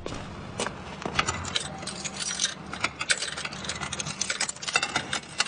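Metal jangling and clinking, in irregular quick clicks and chinks throughout, like a bunch of keys or a pair of handcuffs being handled.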